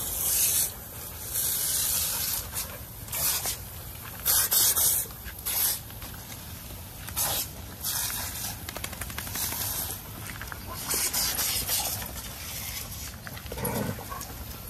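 Thin jet of water from a hose-fed spray hissing and splashing onto wet paving in irregular bursts, with dogs moving about in it.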